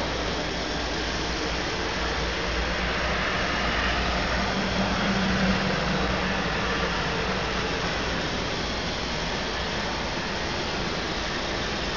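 Ford 655C backhoe loader's diesel engine running steadily, heard from inside the cab, swelling a little about five seconds in.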